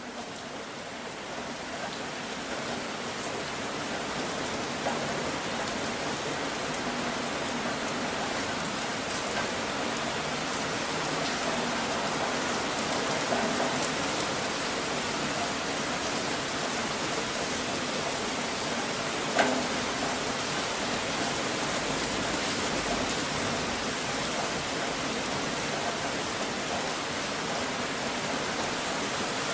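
Steady rain noise, an even hiss that fades in over the first few seconds and then holds level, with a single sharp tick about two-thirds of the way through.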